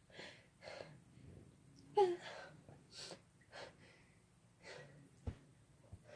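A person's short, sharp gasping breaths, about half a dozen in a row, with a louder catching gasp about two seconds in: the hitching inhalations of a sneeze building up. A short click sounds a little after five seconds.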